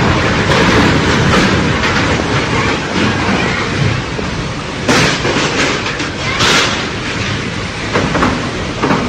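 Violent windstorm with driving rain, a loud continuous rush with heavy wind on the microphone, and two sharper blasts about five and six and a half seconds in.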